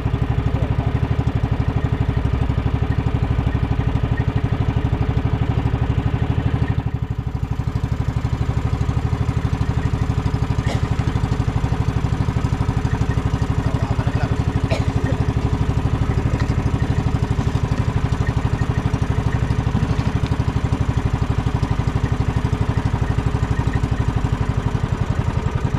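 Small boat's engine running steadily, a continuous even chugging.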